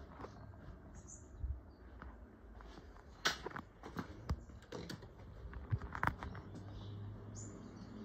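GEC CS/78/Q ceiling fan running with a steady low hum and irregular clicks and ticks, the bearing noise this fan has always had.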